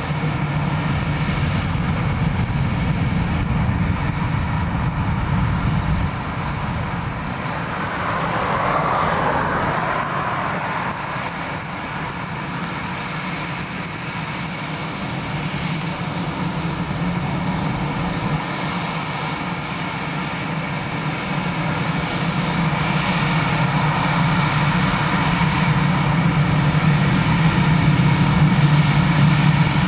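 Jet engines of an Airbus A320-family airliner running at takeoff power during its takeoff roll. A steady engine noise with a low hum, swelling briefly and growing louder toward the end.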